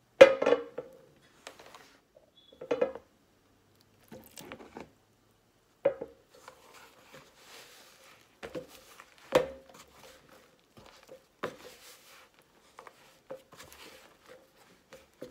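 Hands kneading a wet flour-and-water dumpling dough in a plastic tub: soft squishing and rubbing, broken by irregular knocks with a short ring, the loudest right at the start and about nine seconds in.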